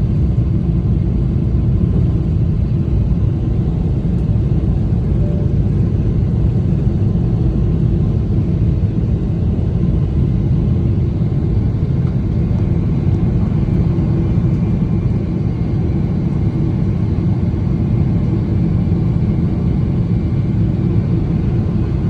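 Steady, loud rumble inside the cabin of a Boeing 777-300ER during take-off: its GE90 engines at take-off thrust with airframe and rolling noise.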